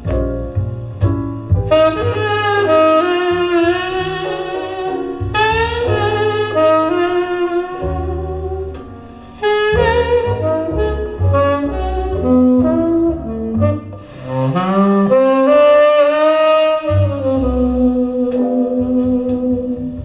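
A jazz record playing on a vinyl turntable through a tube amplifier and Metis loudspeakers: a saxophone plays the melody, with some notes bending in pitch, over a moving bass line.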